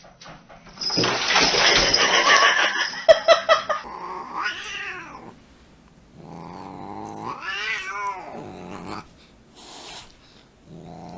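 A cat yowling in drawn-out calls that rise and fall in pitch, the middle call the longest, after a loud rough noisy stretch about a second in.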